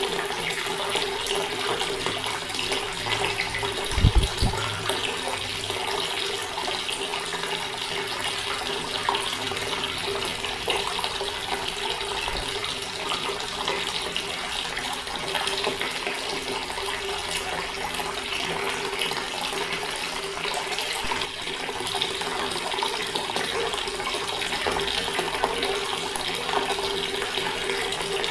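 Water tap running steadily, an even splashing stream of water, with a brief low thump about four seconds in.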